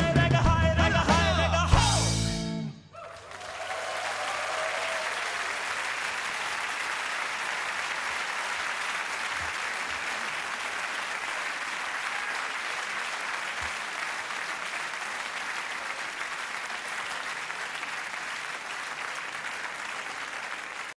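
A live rock band with piano, electric guitars and drums ends its song on a loud final chord, stopping sharply under three seconds in. An audience then applauds steadily for the rest of the time.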